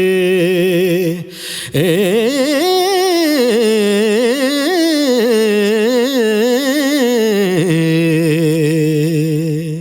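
A singer sustains a long melismatic vocal line in Punjabi Sufi style. A held note breaks into a long run of quick wavering ornaments that rise and fall, then settles back onto a held note near the end. The vocal is recorded through a tube condenser microphone and processed.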